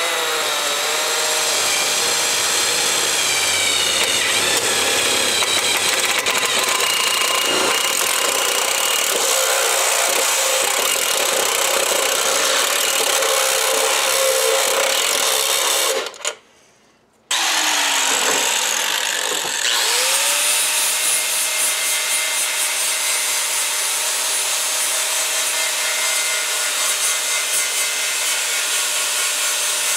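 A cordless drill with a step bit boring a hole through a steel oil pan, a steady grinding whir with the motor wavering, which stops about sixteen seconds in. About twenty seconds in, an angle grinder spins up with a rising whine and cuts steel pipe with a cutoff disc.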